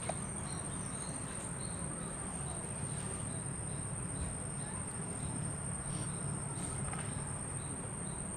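Insects chirping in a regular rhythm, about two short chirps a second, over a steady high drone and a low hum.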